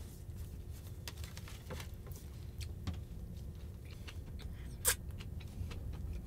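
Quiet scattered clicks and crackles from handling and eating a tortilla wrap, over a steady low rumble, with one sharper click about five seconds in.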